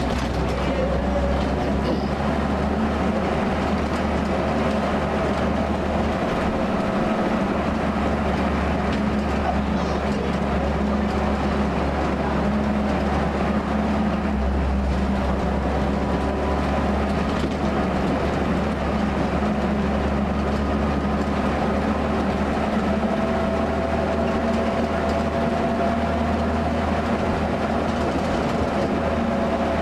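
Military Jeep driving steadily along a road: the engine and drivetrain drone without a break, with several steady tones over a low rumble, and road noise.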